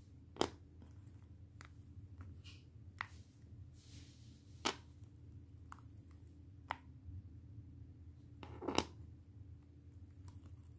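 Cured epoxy resin pieces and a flexible silicone mold being handled: a few scattered light clicks and taps, the loudest a short cluster of clicks late on, over a faint steady low hum.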